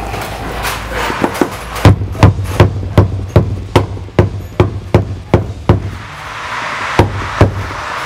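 A mallet tapping plastic push rivets through an insulated ceiling panel into a van's roof ribs. It makes a steady run of sharp strikes, about two and a half a second, then a short pause and a few more strikes near the end.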